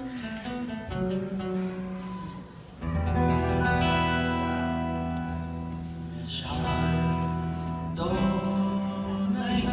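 Live band music: guitar chords over sustained bass and keyboard notes, the sound growing fuller and louder just under three seconds in.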